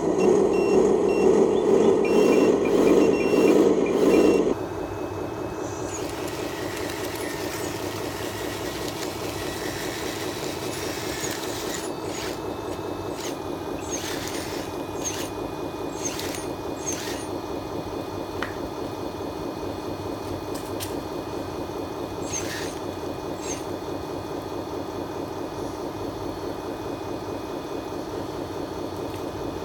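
Simulated diesel engine sound from a scale RC model's sound module, running loudly until it cuts off abruptly about 4.5 s in. After that comes a quieter, steady engine drone, with scattered sharp clicks as the RC excavator works its arm.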